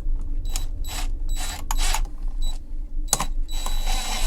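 A series of short scrapes and rustles as a wired electrical outlet and its stiff 12-2 copper wires are pushed into an old-work plastic outlet box.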